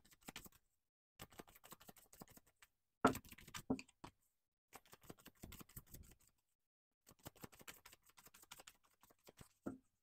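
A deck of oracle cards being shuffled by hand: faint bursts of soft clicks and rustles as the cards slide over one another, loudest about three seconds in.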